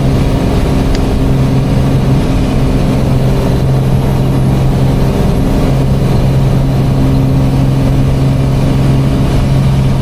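Single-engine Piper PA-28-181 Archer's engine and propeller droning steadily in the cockpit in cruise-climb power.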